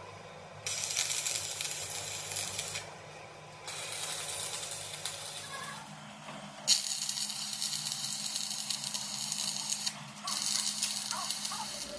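Stick (arc) welding with a handheld electrode, tacking a steel tube onto a steel axle beam: the arc crackles and hisses in four runs of two to three seconds each, with short breaks between them. A steady low hum runs underneath.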